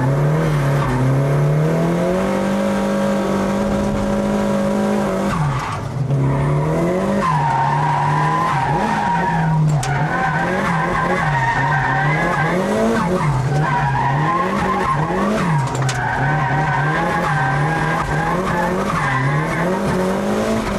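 A drift car being driven sideways through a run of corners: the engine revs up and down with the throttle, held steady at first, dropping briefly about five seconds in, then swinging up and down about once a second, while the tyres squeal continuously through the slides.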